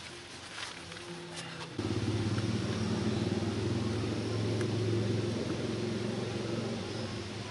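Low, steady engine-like rumble of a motor vehicle that comes in suddenly about two seconds in and fades near the end.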